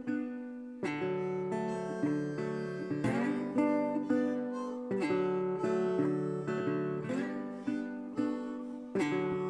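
Background music: acoustic guitar plucking chords, each chord ringing and fading before the next is struck.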